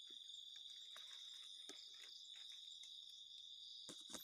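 Crickets chirring in a steady high drone, faint, with a few soft clicks and rustles over it and two sharper ticks near the end.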